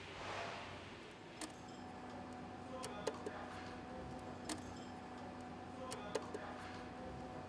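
Light metallic clicks and taps as a metal cylinder head gasket is handled and set down on the engine block, lined up over its locating sleeves. There is a soft sliding rustle just after the start, then a series of sharp clicks, some in quick runs of three.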